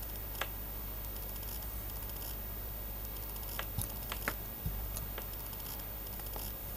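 A handful of short, sharp computer-mouse clicks, scattered and mostly near the middle, over a steady low electrical hum and hiss.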